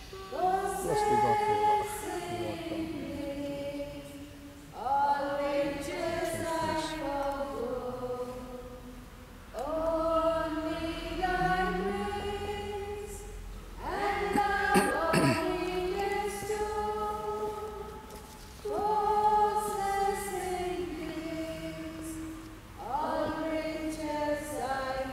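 Choir singing an offertory hymn in slow, held phrases, each new phrase starting about every four to five seconds.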